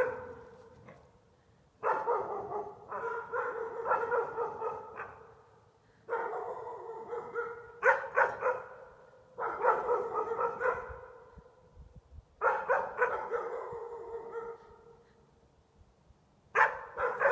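Two small dogs barking excitedly in repeated bouts of rapid barks, each bout lasting two or three seconds with short pauses between; they are barking at their own reflections in the house windows.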